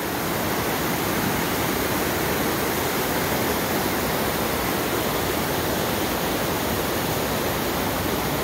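A shallow river rushing over rock ledges and small rapids: a steady, even rush of water.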